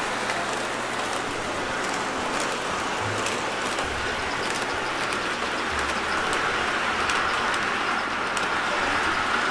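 Model train running on its track close by: a steady rattling hiss of wheels on the rails, with faint scattered clicks.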